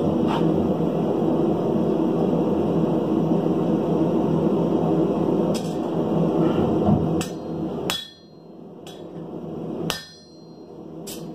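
Hammer striking a hand-held hot chisel to mark a red-hot bar on the anvil. About six sharp blows come in the second half, the louder ones ringing briefly, after several seconds of steady background noise.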